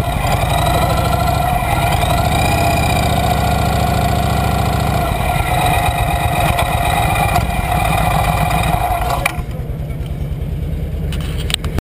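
Cruiser motorcycle engine running at idle and low speed, heard close up as a steady low pulsing rumble. About nine seconds in, the higher part of the sound drops away and the low rumble carries on.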